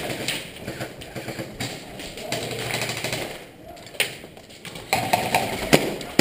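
Airsoft pistols firing in an indoor arena: scattered sharp shots and BB hits at irregular intervals, with the loudest near the end, over a steady background of arena noise.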